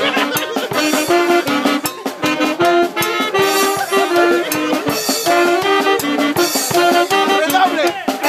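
Live brass band with a drum kit playing a lively dance tune: horns carry a melody of held notes over steady snare and cymbal strokes.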